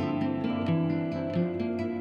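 Background music: plucked acoustic guitar playing a gentle melody.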